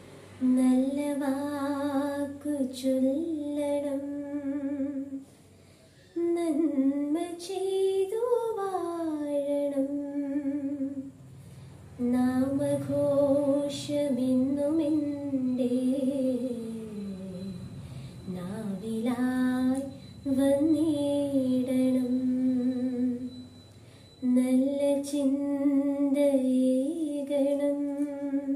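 A woman singing a prayer song solo and unaccompanied. She sings in long held notes with slow pitch glides, in lines of about five seconds broken by short pauses for breath.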